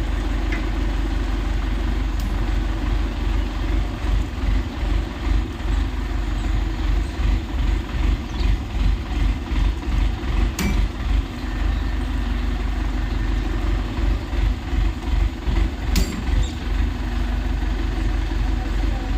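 An engine running steadily with a low rumble that, after a few seconds, pulses about twice a second. There are a couple of sharp clicks partway through.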